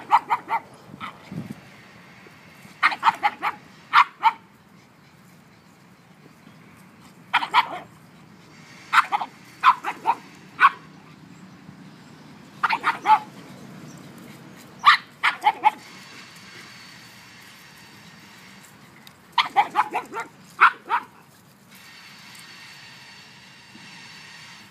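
Pugs barking: clusters of two to five short, high barks every few seconds, with quiet pauses between.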